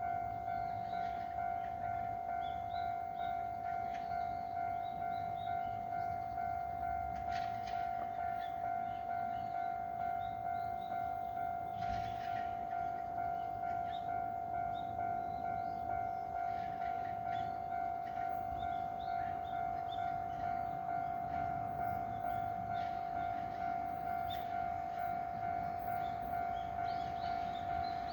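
Japanese railway level crossing's electronic warning bell ringing, a steady repeating ding at an even rate: the crossing is closed for an approaching train.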